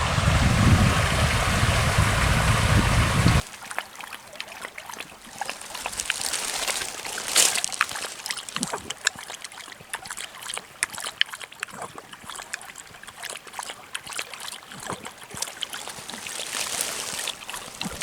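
Wind buffeting the microphone with a low rumble, cut off abruptly about three seconds in. It is followed by a quieter stretch of trickling water with scattered small splashes and clicks.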